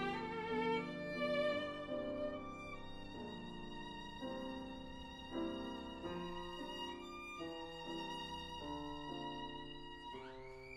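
Background music led by a violin playing sustained notes, sliding up to a held higher note near the end.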